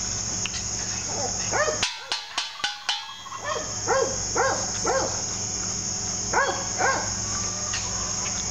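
About five quick, sharp bangs about two seconds in, a pan struck as the loud-noise startle test in a puppy temperament test, over a steady chorus of crickets.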